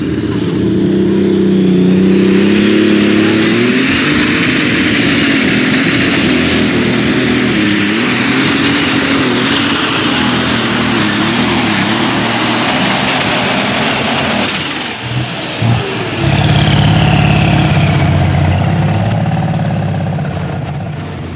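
International light super stock pulling tractor making a full-throttle pull against the sled: the engine runs hard under load, with a high turbocharger whine that climbs about four seconds in and holds steady. About fourteen seconds in the throttle comes off at the end of the run: the whine winds down, there are a few short pops, and the engine settles to a lower, slower note.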